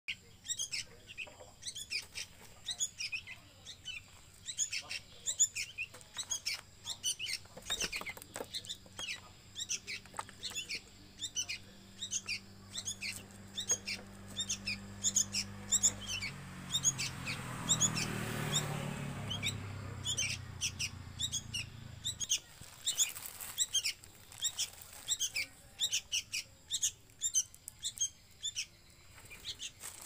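Sooty-headed bulbul chicks chirping, short high calls repeated several times a second without pause. A low hum and rushing noise swell up in the middle and fade away.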